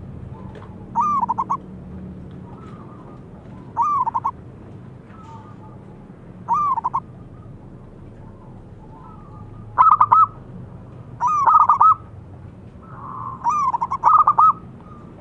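Zebra dove (perkutut) singing: short phrases of rapid, staccato cooing notes, about six in all, repeated every few seconds and coming closer together in the second half.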